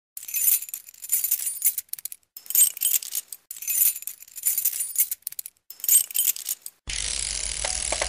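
Bright metallic clinking and jingling in short bursts about once a second, like coins or small bells. It stops at about seven seconds, where a steady hiss with a low hum takes over.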